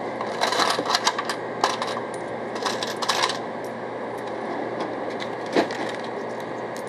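Coins and small items clattering on a shop counter, with clicks from the cash register, as a purchase is rung up. The rattles come in a few short clusters over the first half, with one sharp click near the end, over a steady low room hum.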